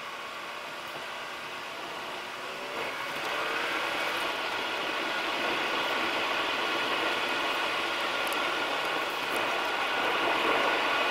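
Car engine and tyre road noise, heard from inside the car while driving: a steady drone that grows louder about three seconds in as the car picks up speed.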